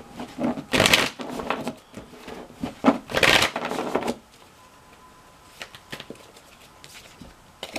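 Tarot cards being handled as the last two cards of a spread are drawn: a few brief bursts of card noise in the first four seconds, then only quiet room tone.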